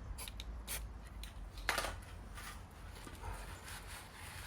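Light workshop handling noises: faint rubbing and small clicks as grease is worked onto the gearbox input shaft, with one brief louder scrape about a second and a half in.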